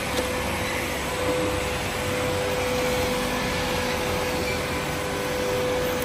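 Makita VC010G 40Vmax cordless upright vacuum cleaner running steadily, a continuous rushing of air with one steady mid-pitched whine, as it is pushed over a bare concrete floor.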